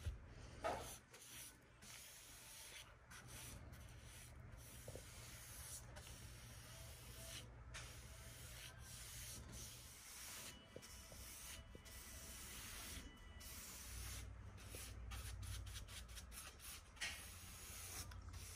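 Faint, repeated soft strokes of paintbrush bristles brushing paint along the edge of a wooden cabinet, with short pauses between strokes and a brief knock about a second in.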